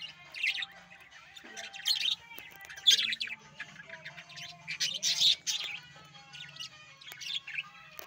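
Budgerigars chirping in repeated short bursts, loudest about three and five seconds in.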